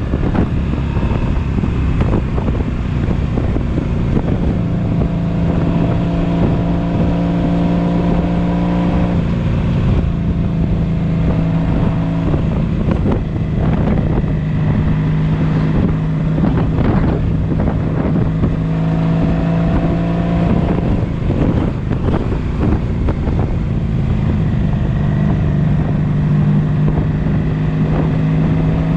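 1983 Honda Sabre 750's V4 engine running hard at highway speed, revved out to clear carbon. Its pitch holds steady, drops twice, and climbs near the end, under heavy wind buffeting on the microphone.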